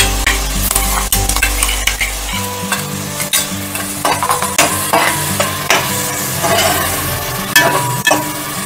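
Metal spoon scraping mint paste out of a steel mixer-grinder jar and stirring it into onions frying in an aluminium pressure cooker: irregular scrapes and clinks of spoon on metal over a steady sizzle of hot oil.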